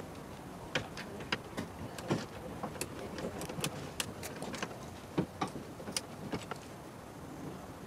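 Irregular sharp clicks and light knocks of hands working plastic clips, plugs and trim at the front of a car's open engine bay, about twenty in all.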